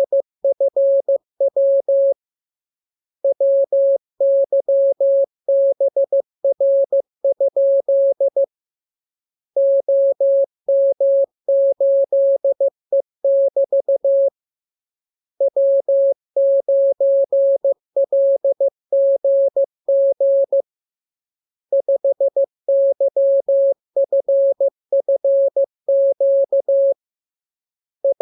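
Morse code (CW) practice signal: a single steady mid-pitched tone keyed on and off in dots and dashes, sent as groups of characters with a pause of about a second between groups, as in a code-receiving drill.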